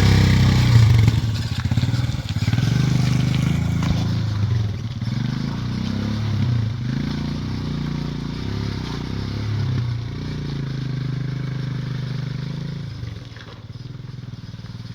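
Motorcycle engine pulling slowly through deep mud, its revs rising and falling as the rider feathers the clutch. It fades away near the end as the bike moves off.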